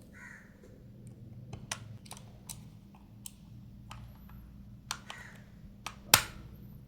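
Scattered small clicks and taps of a plastic toy's battery cover being fitted back and its screw driven in with a small screwdriver, with one sharper click about six seconds in.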